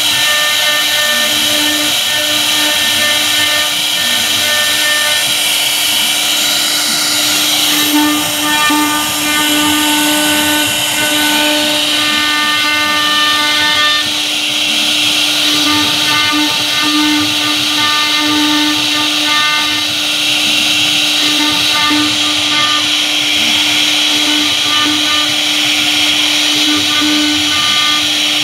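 CNC router spindle running with a V-bit, carving grooves into a wood board: a steady high whine with the hiss of the cut, level throughout.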